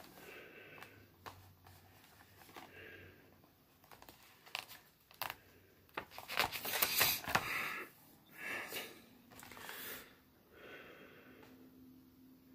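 Soft handling noise: scattered clicks, taps and rustles, busiest in the middle, with a few short breaths through the nose.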